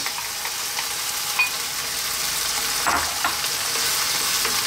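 Onions, garlic, olives and tuna sizzling steadily in a wok as crushed canned tomatoes are poured in and stirred with a wooden spoon, with a few short knocks and scrapes of the spoon around three seconds in.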